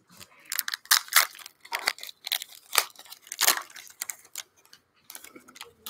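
Foil wrapper of an Upper Deck hockey card pack being torn open and crinkled by hand: a dense run of irregular crackles and rips, thinning to a few faint ticks near the end.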